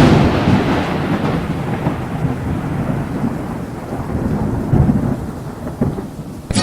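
A thunderclap, loudest at the start, then rolling thunder rumbling on with a couple of swells over steady monsoon rain.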